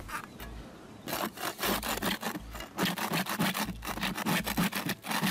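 Hand scraper blade scraping peeling white coating off a flat roof, in quick repeated strokes several a second, starting about a second in.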